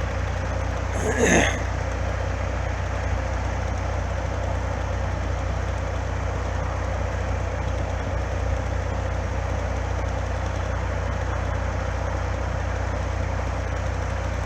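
An engine idling steadily, with a brief louder sound about a second in.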